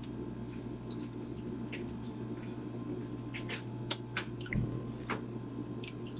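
Balut (duck egg) shells being cracked and peeled by hand: scattered small clicks and crackles, with a cluster in the second half, over a steady low hum.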